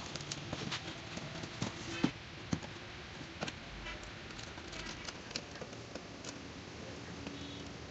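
Light clicks and taps of a slotted metal mounting bracket, bolt and washer being handled against a plastic concealed-cistern frame. The clicks are thick in the first couple of seconds, then come only now and then.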